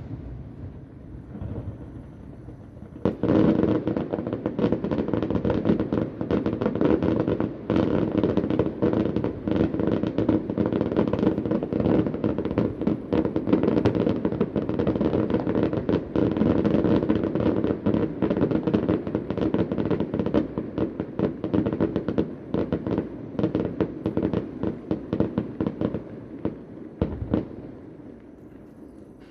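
Fireworks going off in a dense, rapid barrage of bangs and crackling pops. The barrage starts abruptly about three seconds in and dies down near the end.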